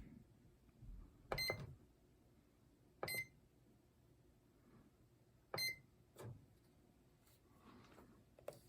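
Microwave oven keypad beeping three times as it is set to run, short electronic beeps a second or two apart, with a few soft knocks from the buttons or handling.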